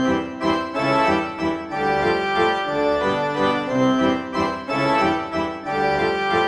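Instrumental background music: a melody of held notes, each lasting about half a second, that starts abruptly.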